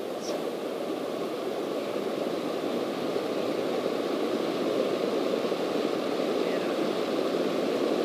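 Cessna light aircraft's piston engine and propeller droning, heard from inside the cockpit, growing gradually louder.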